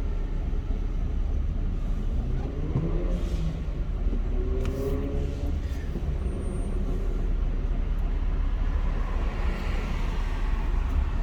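Car driving, a steady low rumble of road and engine noise, with a faint wavering tone a few seconds in.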